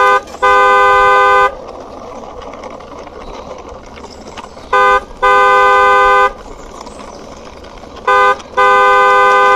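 Car horn honking three times, each time a short toot followed by a longer toot of about a second, a few seconds apart. A fainter steady noise runs underneath between the honks.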